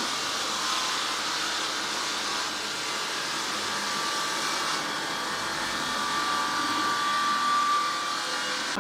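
Stone-cutting saw grinding steadily through stone, a hissing machine noise with a faint whine that grows stronger near the end.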